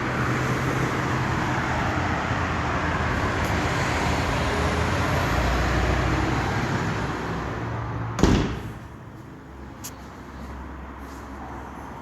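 Road traffic, with passing cars and the low run of their engines. A sharp thump comes about eight seconds in, and after it the traffic is much fainter.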